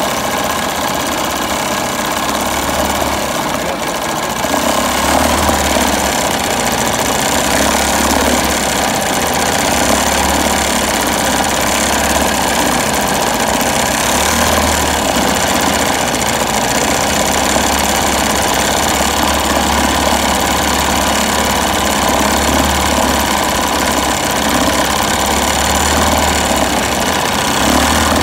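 Evinrude Mate 2 outboard's small single-cylinder two-stroke engine running steadily during a test run, its lower unit churning water in a test bucket. It gets a little louder about four seconds in.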